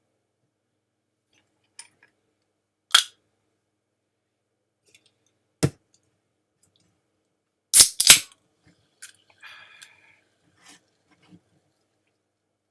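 Scattered sharp knocks and clacks of hard objects being handled: a single knock about three seconds in, another a little before the middle, then a loud double clack about eight seconds in, followed by a few softer taps and rattles.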